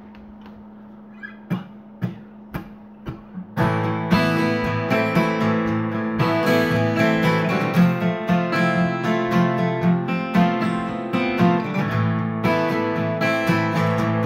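Two acoustic guitars, one a Fender, playing a song's instrumental intro together in picked and strummed chords. The guitars come in about three and a half seconds in; before that there is only a low steady hum and a handful of soft taps.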